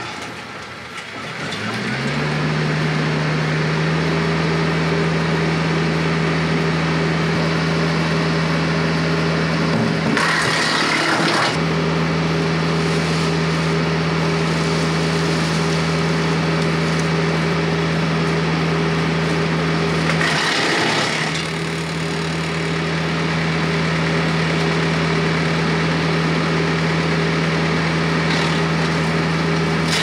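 Compact tractor's diesel engine revs up in the first two seconds and then runs steadily at high speed, driving a PTO wood chipper. About a third and two thirds of the way through, branches go into the chipper with a short loud crackling and splintering as the wood is chipped, and the engine dips briefly under the load each time.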